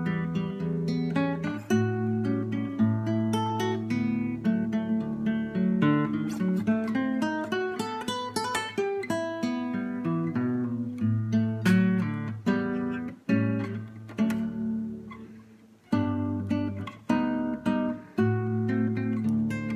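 Acoustic guitar playing an instrumental piece, picked notes ringing on. The notes fade away about three-quarters through, then the playing starts again.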